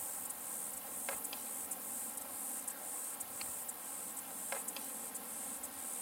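Dusk chorus of insects: a high, steady trilling that pulses a couple of times a second, with a few short sharp clicks over it, the clearest about a second in and again about four and a half seconds in.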